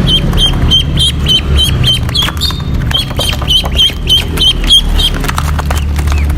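Ducks calling: a rapid run of short, high calls, about four or five a second, that stops about five seconds in, over a steady low rumble.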